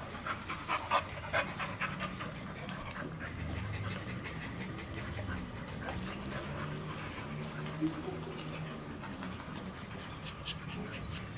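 Adult pit bull panting steadily, in quick breaths.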